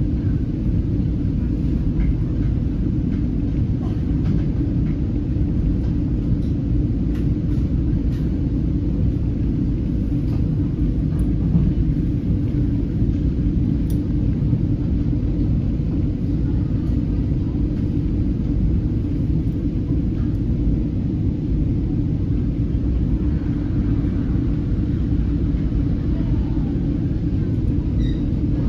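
Steady low rumble of an NJ Transit Comet V passenger coach running at speed, heard from inside the car, with a few faint ticks over it.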